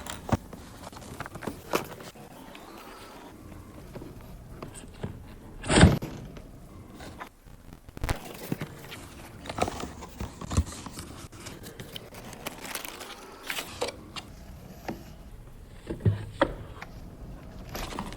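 Unboxing handling sounds: a packaged Leatherman Wingman multitool and its box being opened and handled, with scattered clicks, rustles and knocks. One loud knock comes about six seconds in.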